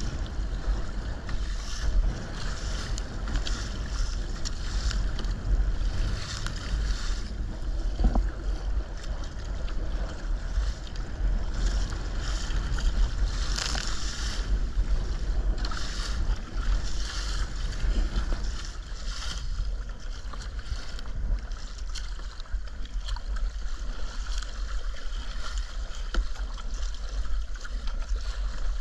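Water splashing and sloshing against a sea kayak's hull in choppy sea, with wind buffeting the microphone in a steady low rumble. Louder splashes come every second or two, the biggest about 14 seconds in as a wave breaks over the bow.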